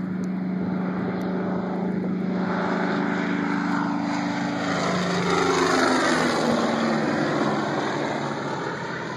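P-47 Thunderbolt's 18-cylinder Pratt & Whitney R-2800 radial engine at takeoff power as the fighter climbs past. The drone grows to its loudest about six seconds in, its pitch falls as the plane goes by, and it fades near the end.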